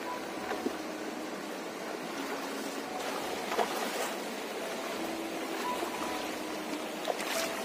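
Shallow river water running steadily, with splashes of feet wading through it, a few sharper ones about halfway through and near the end.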